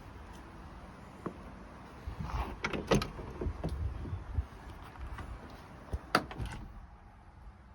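Several sharp clicks and clunks, bunched about two to three seconds in and again about six seconds in, over a low rumble.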